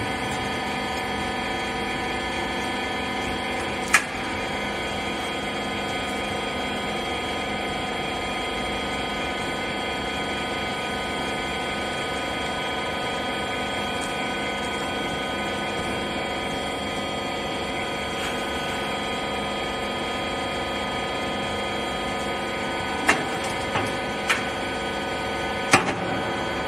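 Hydraulic power unit of a wiper rag baler running with a steady hum. One sharp knock comes about four seconds in and three more near the end.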